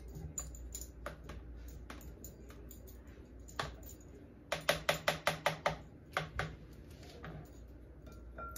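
Ladle clicking and tapping against the inside of a glass punch bowl as it presses down the layered cake, with a quick run of about seven taps a second a little past the middle.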